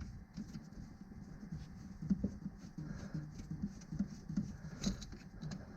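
Faint, irregular tapping, scuffing and clicking of hands fumbling with metal parts under a mower deck, with a sharper click about five seconds in.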